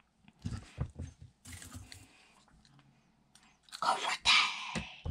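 Metal construction-set pieces being handled: scattered clicks and light knocks with rustling, then a louder rustle and sharp clicks about four seconds in as the parts are put down.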